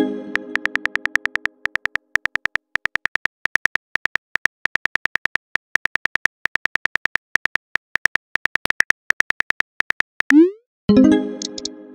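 Texting-app sound effects: a short message chime, then a rapid run of phone-keyboard tap clicks, several a second, as a reply is typed. Near the end comes a rising swoosh as the message is sent, followed by another chime.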